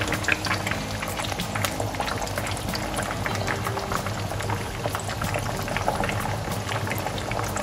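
Whole steamed chicken deep-frying in a pan of hot oil: the oil bubbling and sizzling around it with a steady crackle of small pops.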